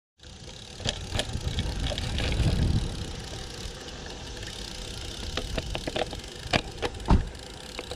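Road bike rolling along the road: low wind and road rumble on the microphone, swelling about two and a half seconds in, with scattered clicks and rattles from the bike and a single heavy thump near the end.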